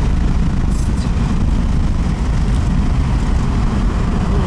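Steady low rumble of a car driving along a road, engine, tyre and wind noise heard from inside the moving car.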